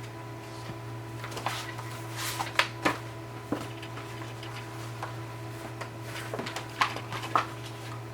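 Scattered small clicks, taps and rustles of hands working a string loose and pulling it out of a notebook cover, over a steady low hum.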